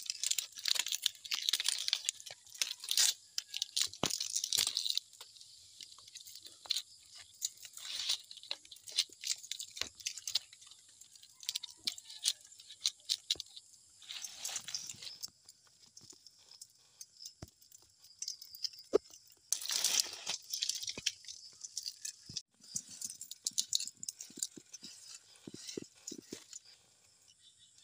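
Green leaf strips rustling and crackling as they are wrapped and pulled tight around a wooden pole to lash it to a stake, with scattered small clicks and taps. The rustling comes in bursts, loudest in the first few seconds and again about twenty seconds in.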